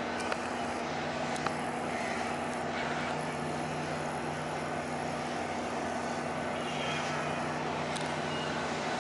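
Crab boat F/V Northwestern's diesel engines running, a steady low hum. Two short sharp clicks come in the first second and a half.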